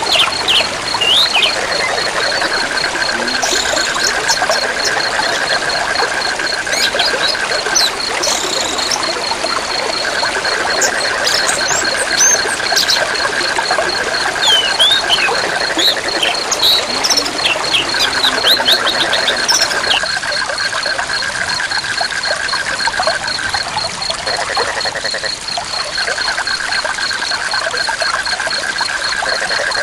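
River and forest ambience: a steady rush of river water under a high, rapidly pulsing insect call, a lower pulsing call that runs in stretches of several seconds with short breaks, and scattered quick bird chirps.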